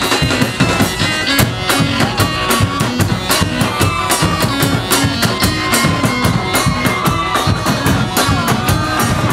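Carnival band music: drums beating a fast steady rhythm, with long sustained wind-instrument tones wavering over it.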